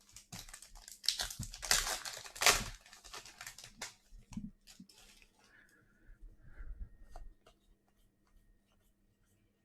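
Sports card pack wrapper being torn open and crinkled, loudest in the first three seconds, followed by scattered light handling clicks that die away.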